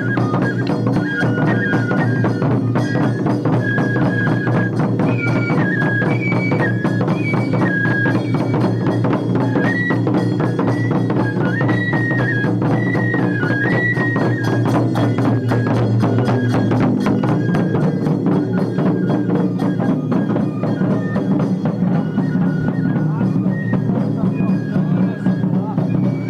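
Japanese festival hayashi: a bamboo flute plays a high, stepping melody over taiko drums and fast, steady percussion strokes.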